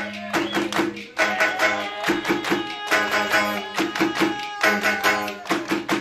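Music: plucked string instruments over hand drums playing a quick, steady rhythm.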